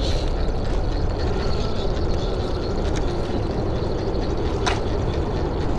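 Axial SCX10 III 1/10-scale RC rock crawler, driven by a Hobbywing AXE540 brushless motor, crawling over rocks. Its drivetrain whirs steadily, with one sharp knock about four and a half seconds in.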